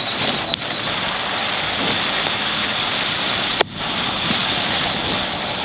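Steady rushing noise, with a sharp click about three and a half seconds in.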